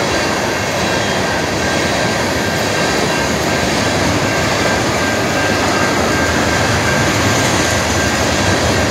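Freight train cars rolling past close by: a steady, loud rumble and clatter of wheels on the rails, with a faint steady high tone above it.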